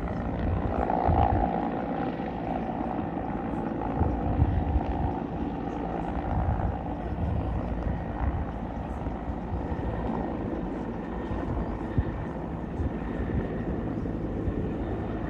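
Helicopter running overhead, a steady rumble with an uneven low throb from the rotor.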